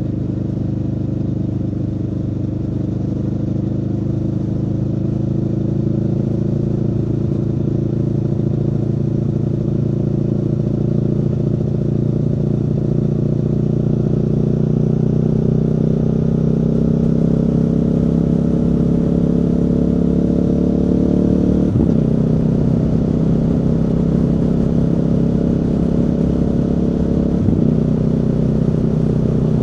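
Aprilia Tuono V4's V4 engine pulling under steady throttle, its note rising slowly. Two quick upshifts drop the pitch, about three-quarters of the way through and again near the end.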